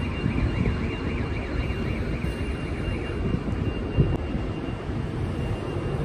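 City street traffic noise: a steady low rumble of cars on the road, with a faint steady high whine and one short thump about four seconds in.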